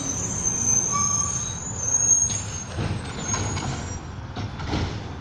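Garbage truck down the street, its engine rumbling steadily, with a high, thin brake squeal over the first two seconds or so.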